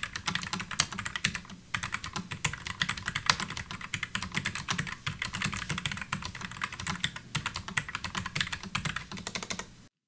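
Fast, continuous typing on an Azio Cascade 98 Slim low-profile mechanical keyboard with quiet brown switches: a dense stream of soft key clicks that stops just before the end.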